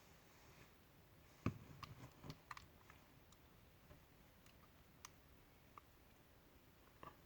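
Light clicks and taps of small hair-clipper parts being handled and fitted: a quick cluster of clicks about a second and a half in, the first the loudest, then a few scattered single clicks.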